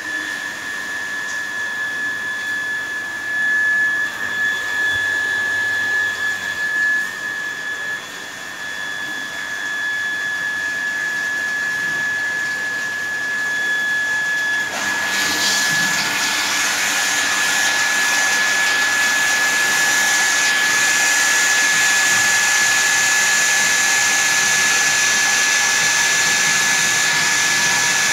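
Water filter plant's pump motor running with a steady high whine and a rushing hiss, the hiss getting louder about halfway through.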